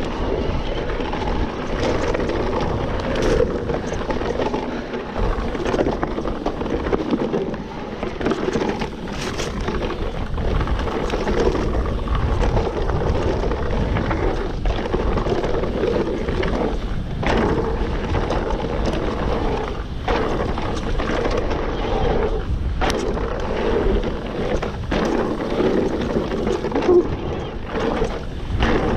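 Mountain bike riding fast down a dirt singletrack: steady tyre and wind noise on the bike-mounted microphone, with the bike rattling and knocking over bumps many times along the way.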